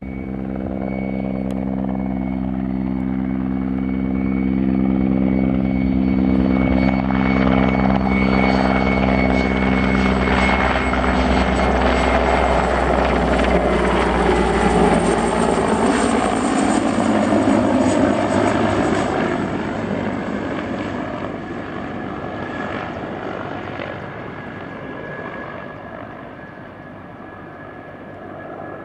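Mil Mi-17 twin-turbine military helicopter flying low past: a rotor beat with a high turbine whine. It grows louder over the first few seconds, is loudest around the middle as it passes close, then fades as it flies away.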